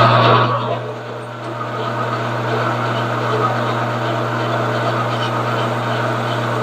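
Metal lathe running at a steady speed with a steady motor hum, louder with a hiss of cutting for about the first second, then settling to a quieter even run.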